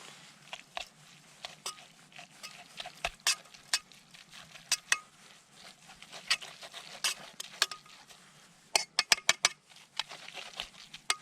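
A metal utensil clinking and scraping against a metal camp cooking pot with noodles in it, in irregular knocks, some with a brief ring, and a quick run of clicks about nine seconds in.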